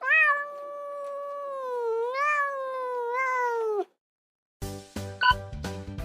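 A domestic cat meowing: one long, drawn-out meow of nearly four seconds, its pitch wavering up and down. Then a bouncy music jingle starts about four and a half seconds in.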